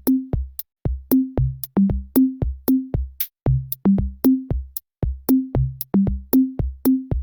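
Background music: an electronic beat of kick drum and short bass notes with hi-hat ticks, about three strokes a second.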